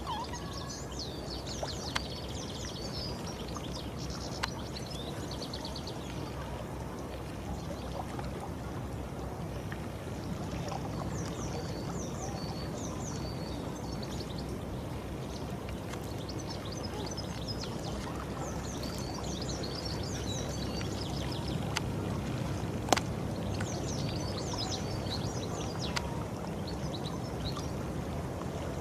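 Small birds chirping in quick, high bursts every several seconds over a steady rushing background noise, with a few sharp clicks, the loudest about two-thirds of the way through.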